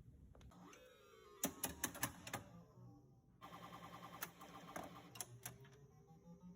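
Gottlieb Black Hole pinball machine running: sharp mechanical clicks from its coils, mixed with electronic sound effects that glide up and down in pitch and a quick run of repeated beeps about halfway through.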